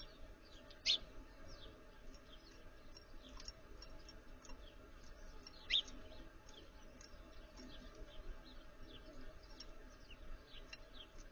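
Small backyard songbirds chirping: a steady scatter of short, high, falling chirps, with two louder sharp chirps about a second in and near six seconds.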